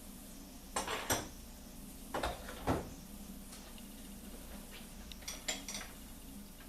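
Metal hand tools clinking and clattering as they are handled: a pair of sharp clinks about a second in, two more about two to three seconds in, and a few fainter ticks later.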